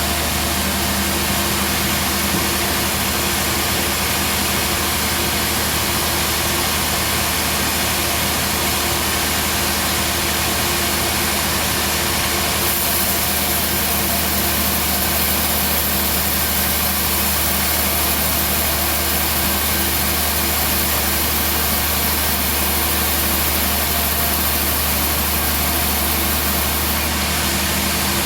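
Homemade band sawmill running with a steady engine drone. A high hiss grows stronger about halfway through and eases again near the end.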